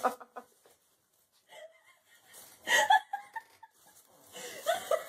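A person laughing in short breathy bursts, once about two and a half seconds in and again near the end.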